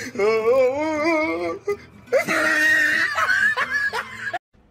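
A person laughing: a high, wavering laugh, then a breathy, wheezing laugh from about two seconds in that cuts off abruptly near the end.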